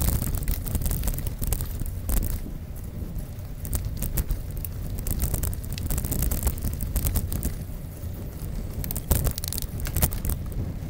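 Bicycle riding over a rough, leaf-strewn dirt trail: wind rumble on the microphone with frequent clicks and rattles as the bike jolts over bumps.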